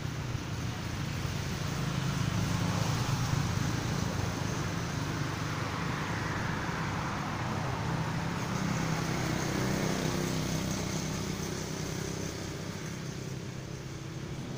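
Steady road traffic noise with a low engine rumble, swelling from about two seconds in and easing off near the end.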